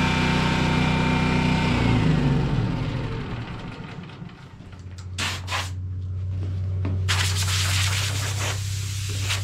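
Power sander running, then switched off and spinning down with falling pitch over about two seconds. After that a low steady hum holds, with a few short rubbing noises over the wood.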